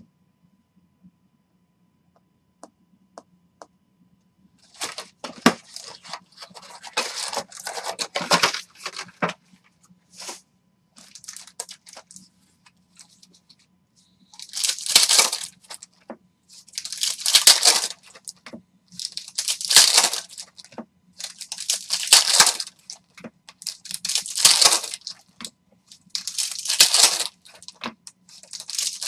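Foil trading-card packs of Upper Deck hockey cards being handled and torn open one after another. A longer stretch of crinkling and rustling comes about five seconds in. From about halfway there is a sharp tearing crinkle roughly every two and a half seconds, seven in all, over a faint steady hum.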